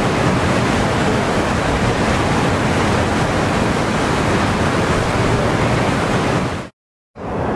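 Muddy flash-flood water rushing in a steady, even roar of noise, with wind on the microphone. It cuts off suddenly near the end.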